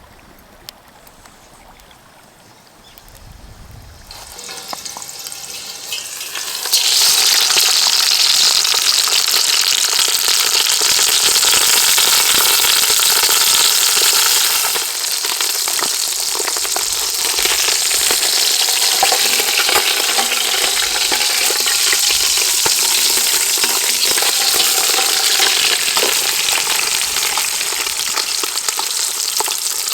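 Food frying in hot oil: faint at first, then a loud, steady sizzle about a quarter of the way in that carries on to the end.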